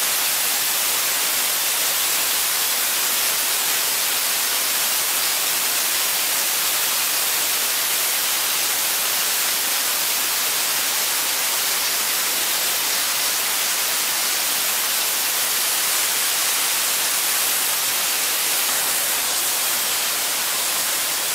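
Steady hiss of a cutting torch burning through a rotating steel pipe.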